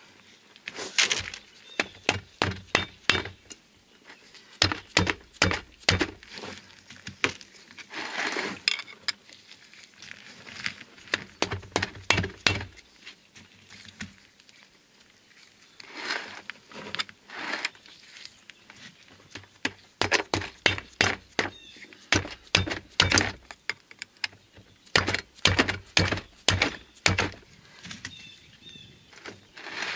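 Hammer tapping a pry bar wedged under the lip of an old rear axle seal in a Dodge Ram 2500 wheel hub, in runs of sharp taps with short pauses. The bar is being worked around the hub to lift the seal out of its bore.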